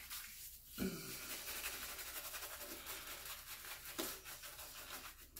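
Boar-bristle shaving brush working lather onto a wet, stubbly face: a rapid, even brushing that starts about a second in, re-lathering for a third pass with the razor.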